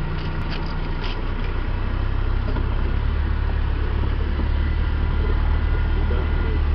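Land Rover engine running as it drives along a rough dirt track, a steady low drone that grows slowly louder. A few sharp scrapes of branches brushing the vehicle come in the first second or so.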